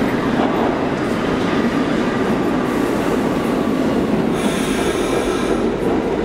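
Subway train noise on a station platform: a steady, loud rumble and hum, with a high metallic squeal of steel wheels on rail from about four and a half seconds in until near six seconds.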